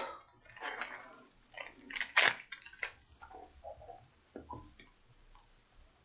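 Irregular handling noises on a workbench: short rustles and clicks, with the sharpest click a little past two seconds in.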